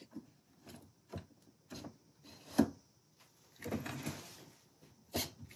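VW Mk1 steering lock housing being slid and wiggled onto the steering column shaft, a tight fit: scattered light clicks and scrapes, with one sharper knock about two and a half seconds in and a short scraping stretch a second later.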